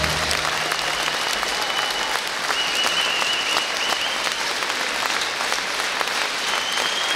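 Audience applauding steadily, just after the waltz music's last notes stop right at the start.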